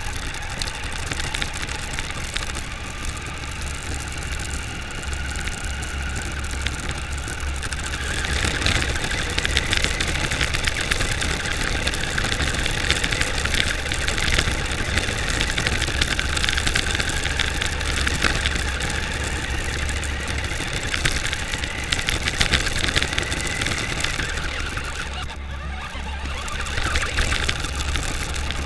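New Bright Corvette radio-controlled car running on rough tarmac, heard from a camera mounted on the car: its battery-powered electric motor and gears whine over the rumble and crackle of the tyres on the road. The whine climbs and gets louder about eight seconds in, drops out briefly near the end, then picks up again.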